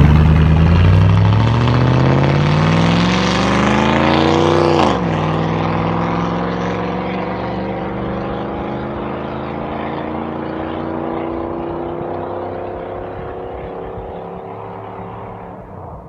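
1999 Chevrolet Silverado's 5.3-litre LM7 V8 with straight exhaust tubing in place of the muffler, accelerating hard away. The pitch climbs for about five seconds, drops suddenly at an upshift, then climbs again more slowly while the sound fades with distance.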